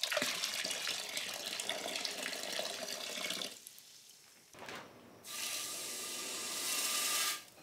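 Water poured from a tin can on a stick into a bucket of water, splashing steadily for about three and a half seconds and then stopping. After a short pause a steady hiss runs for about two seconds and cuts off near the end.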